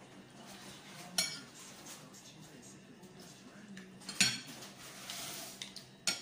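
Cutlery clinking against dishes while noodles are served: a sharp clink about a second in, a louder one about four seconds in, and another near the end.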